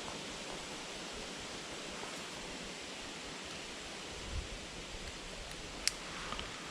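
Steady rushing hiss of flowing creek water, with a few soft low knocks about four seconds in and a single sharp click near the end.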